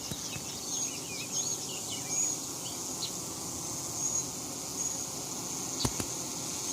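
Honeybees massed at a hive entrance buzzing steadily, fanning their wings to drive heat out of the muggy hive. Short high chirps repeat in the background, and there is a single sharp click about six seconds in.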